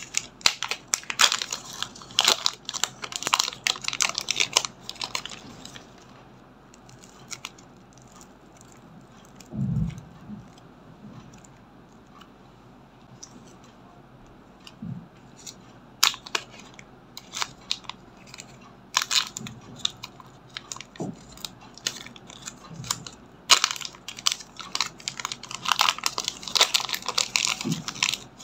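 Thin plastic zip-lock bag crinkling and rustling in bursts as hands open it and squeeze clay out of it, with a dull low thump about a third of the way through.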